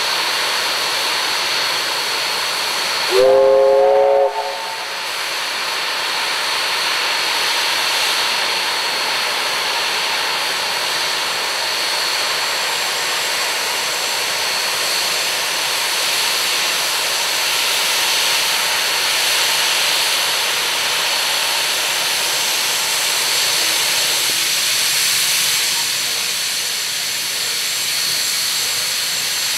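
Steam locomotive 3526 standing with steam hissing steadily, broken about three seconds in by one short blast of its steam whistle lasting about a second.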